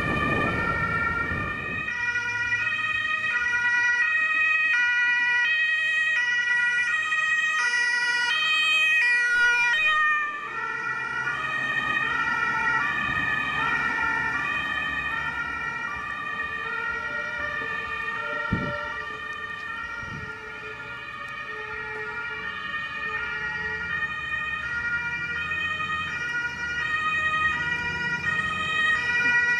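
Several German two-tone fire engine sirens (Martinhorn) sounding at once, each stepping between its two notes out of step with the others. A fire truck's engine rumbles past in the first couple of seconds.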